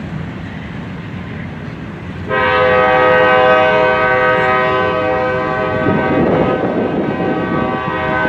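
Freight train's hopper cars rolling past with a steady rumble. About two seconds in, a diesel locomotive's multi-chime air horn starts abruptly and is held as one long blast.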